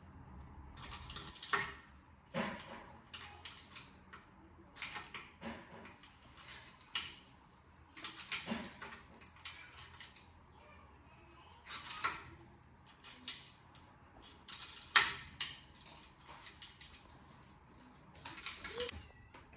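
A wooden dining chair being assembled by hand: irregular clicks, taps and knocks of the wooden parts and metal fittings being handled and fastened, the sharpest knocks about one and a half and fifteen seconds in.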